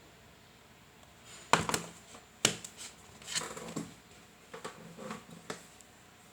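Blu-ray steelbook and its packaging being handled: a series of sharp clicks, clacks and rustles, the two loudest about one and a half and two and a half seconds in, then smaller ones.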